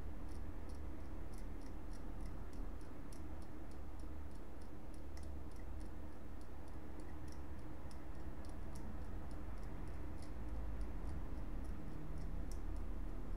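Fine scraping of the coating off copper traces on a laptop motherboard, to bare them for soldering: small, dry scratchy ticks, a few each second, over a steady low hum.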